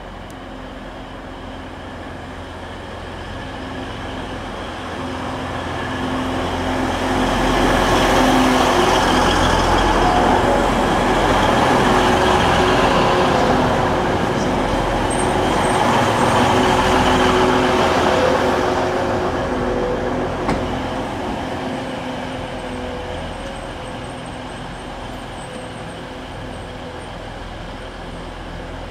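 A train running at the station: its engine and wheel noise, with a steady hum of several tones, grows over a few seconds, stays loud for about ten seconds, then fades away. There is a single short click about twenty seconds in.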